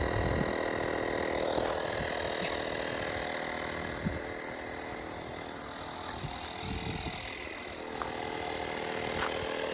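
Small portable air compressor running steadily with an even motor hum, inflating a flat car tire. It is slow, still only partway up in pressure.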